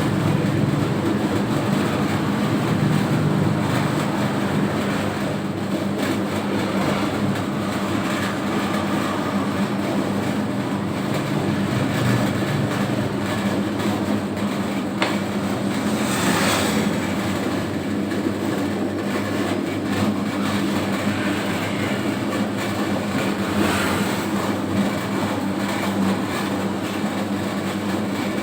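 Home-built 3 kg dough mixer running steadily, its motor and drive humming as it kneads a batch of dough; a brief louder swish about halfway through.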